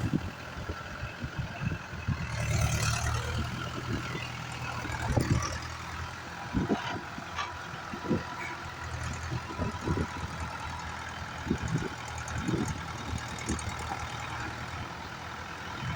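A heavy vehicle's engine running steadily, with several short knocks and rattles over it.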